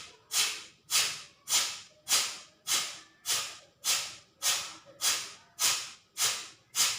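Rapid kapalabhati breathing: a person's forceful exhalations through the nose, about twelve sharp puffs evenly spaced a little under two per second, each starting abruptly and fading quickly.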